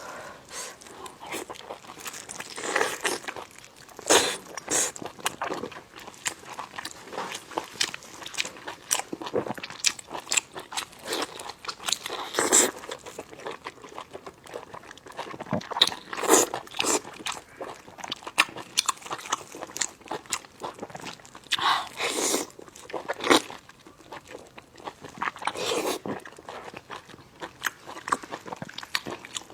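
Close-miked biting and chewing of bundled sheep intestines (yang kun chang): irregular crunchy, sticky bites and mouth noises, the chewy guts squeaking against the teeth when bitten.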